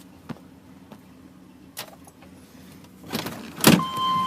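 Chevrolet 1500 pickup's engine idling, heard from inside the cab as a steady low hum, with a couple of light clicks. About three seconds in comes a loud clatter of knocks, and just before the end a steady high-pitched tone starts.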